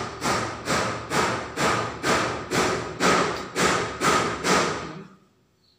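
A steady thumping beat, about two heavy thumps a second, that stops abruptly about five seconds in: bass-heavy music played through a loudspeaker.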